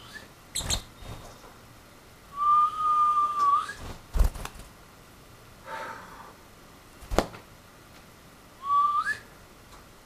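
A person whistling two held notes at a steady pitch, each sliding upward at the end: a longer one a couple of seconds in and a short one near the end. Several sharp clicks fall between them.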